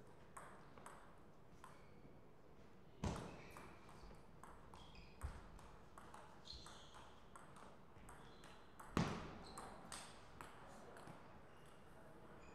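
Table tennis ball clicking off the bats and table during a rally, a few hits a second, with two louder, sharper knocks about 3 and 9 seconds in.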